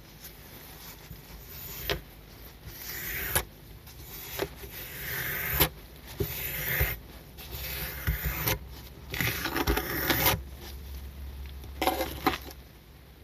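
A miniature squeegee scraping foamy, dirty wash water off a small soaked rug: a series of wet scraping strokes, broken by a few sharp taps.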